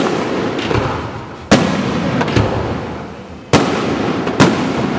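Aerial firework shells bursting in a display: four sharp bangs and a smaller one in about five seconds, each followed by a long rumbling echo that fades away.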